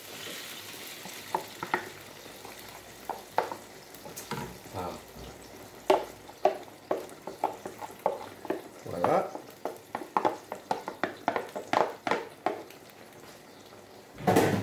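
Tomato sauce poured into a hot sauté pan of onions and water, sizzling at first. Then a wooden spatula scrapes the sauce out of a plastic tub and stirs it in the pan, making many short scrapes and knocks.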